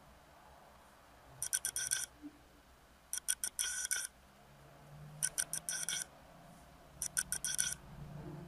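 A pointed pencil makeup brush being stroked along the brow bone to lay down eyeshadow: four short bursts of quick, scratchy back-and-forth strokes, about two seconds apart.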